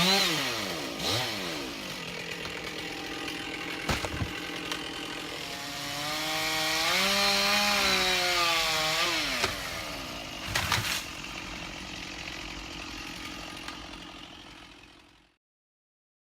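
Two-stroke chainsaw running at varying speed, its pitch climbing to a high rev for a few seconds midway and dropping back. A few sharp knocks stand out, and the sound cuts off suddenly near the end.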